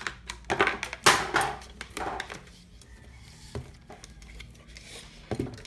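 Handling noises from a small toy gumball machine and its packaging being unpacked: a cluster of knocks and rustling, loudest about a second in, then a few scattered clicks.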